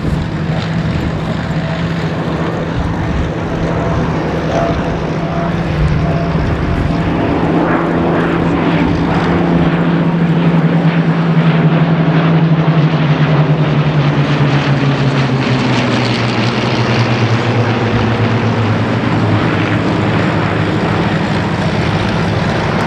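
Piston-engined warbird formation flying past (a Bristol Blenheim with its twin Bristol Mercury radials, a Merlin-engined Hawker Hurricane and P-51D Mustang): a steady propeller-engine drone that builds to its loudest about halfway through, then drops in pitch as the aircraft pass and move away.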